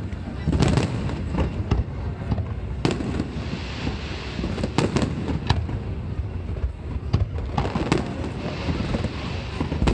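Aerial fireworks display: a dense run of sharp bangs from bursting shells, with crackling glitter sizzling about four seconds in and again near the end.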